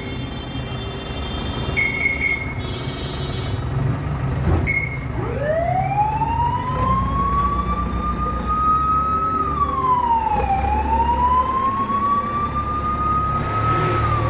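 A wailing siren winds up from a low pitch about five seconds in, then rises and falls slowly, dipping once and climbing again before falling near the end. Under it a diesel engine, the backhoe loader's, runs steadily, and two held high tones sound in the first few seconds.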